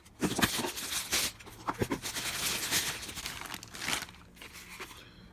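Packaging being handled: rustling and crinkling with a few sharp clicks, which stops about four seconds in.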